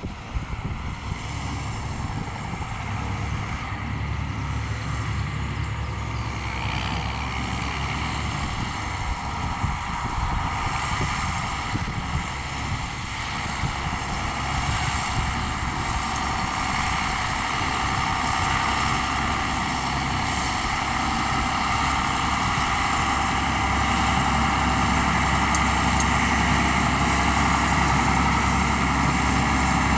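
John Deere tractor's diesel engine running steadily while pulling a Pöttinger twin-rotor grass rake, growing gradually louder as it draws nearer.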